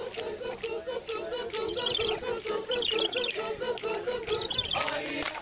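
Voices chanting rhythmically, short even syllables on a near-steady pitch, with scattered sharp clicks.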